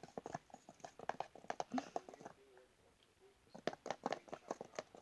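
Utensil stirring thick slime mixture in a bowl: quick, irregular clicks and taps, with a short lull around the middle.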